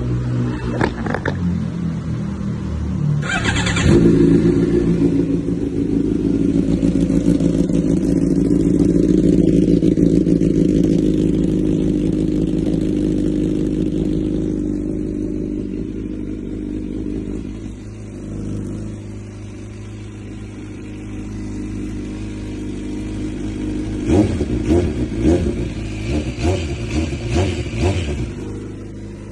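Suzuki GSX-R600 inline-four engine running and being revved. It swells to a long, loud rev about four seconds in and eases back down, then gives a string of quick throttle blips near the end.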